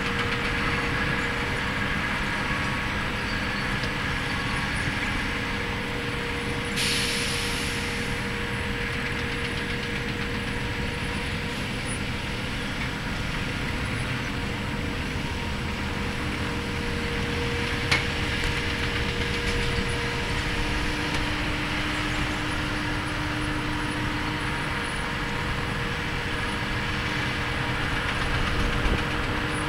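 Diesel locomotive idling with a steady rumble and hum. A short hiss of air about seven seconds in, and a single sharp click a little past the middle.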